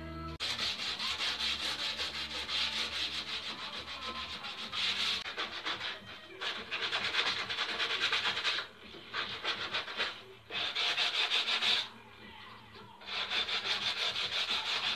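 Sandpaper rubbed by hand over a wooden carpenter's tool box, a rasping hiss of quick back-and-forth strokes in spells with short breaks.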